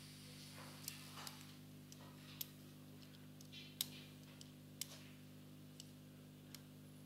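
Near silence in a pool hall: a steady low hum with about seven faint, scattered clicks of pool balls knocking together.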